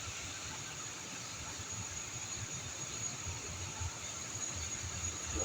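Steady hiss of falling rain with a low, uneven rumble underneath and a faint, steady high whine.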